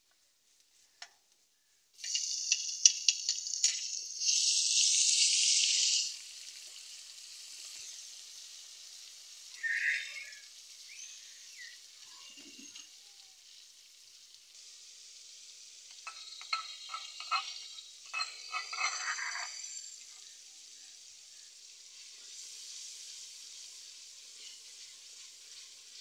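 Vegetables frying in hot oil in an aluminium pot. A loud sizzle breaks out about two seconds in as they go into the oil, then settles to a steady sizzle. A metal spoon scrapes and clinks against the pot as the mixture is stirred, most clearly in the second half.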